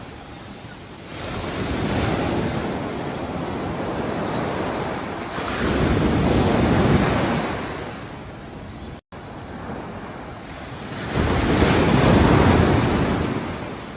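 Ocean waves breaking and washing ashore: three rushing surges that swell and ebb, with a brief cut to silence just past the middle.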